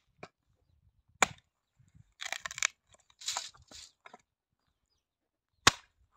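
A long-handled axe chopping firewood: two sharp strikes about four and a half seconds apart, the second one the loudest. In between are short stretches of rustling and scraping as the wood shifts.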